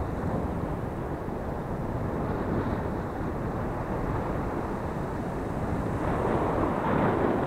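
Surf washing up a sandy beach, with wind rumbling on the microphone; a wave washes in louder about six seconds in.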